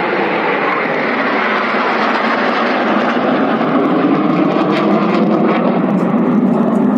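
Aircraft engine noise from an aircraft flying by at an air show, loud and steady, settling lower in pitch in the second half.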